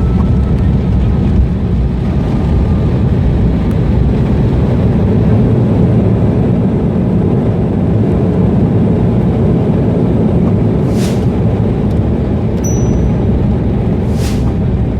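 Airbus A319 jet engines in reverse thrust on the landing rollout: a loud, steady roar heard from inside the cabin, easing slightly in the second half.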